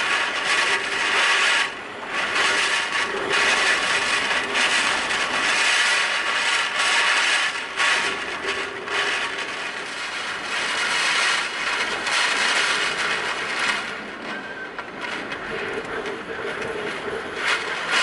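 Typhoon wind and heavy rain, a dense, crackling noise that rises and falls in strong gusts and eases somewhat near the end.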